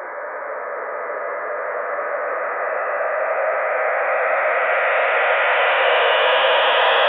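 Eerie build-up sound effect: a band of hissing noise that swells steadily louder and grows brighter, its upper edge climbing in pitch, with faint steady tones inside it.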